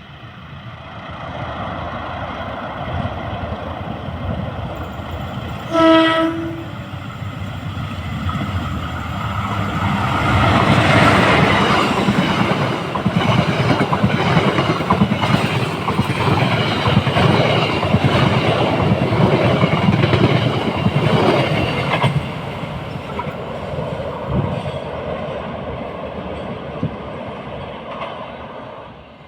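Diesel-locomotive-hauled train approaching, sounding one short horn blast about six seconds in. It passes, loudest for about ten seconds in the middle, then fades away near the end.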